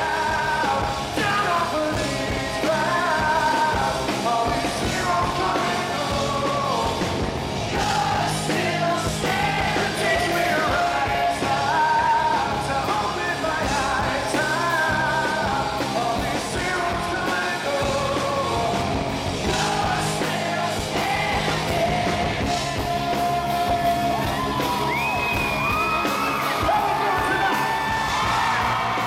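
Live rock band playing: a male lead singer sings over electric guitars and drums, heard from within the audience at a concert.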